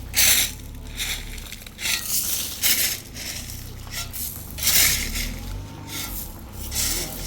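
Shovels scraping and crunching through concrete mix in a series of separate strokes, the loudest near the start and about two-thirds of the way through, over a steady low hum.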